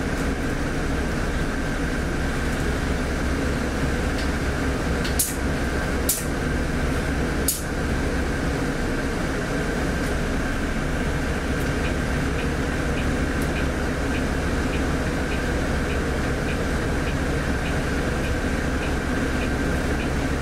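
Steady running noise of a Volvo B8RLE bus heard from inside the cabin, its six-cylinder diesel and ventilation giving an even hum with a constant mid-pitched tone. Three short sharp sounds come between about a quarter and a third of the way in. A regular ticking, a little under two a second, starts just past halfway.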